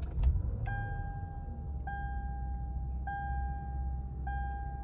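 Lexus SUV engine starting and settling into a steady idle, with a dashboard warning chime ringing four times about a second apart.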